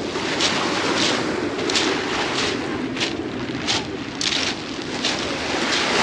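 Footsteps crunching on a beach of sea pebbles, about three steps every two seconds, over steady wind noise on the microphone and the wash of small waves at the shore.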